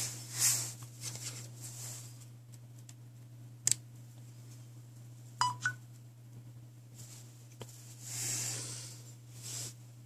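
Handling noise as a micro-USB charging cable is plugged into a Samsung smartphone: soft rustles of the cable and hand, a sharp click, and about halfway through a short two-note electronic beep from the phone, over a steady low hum.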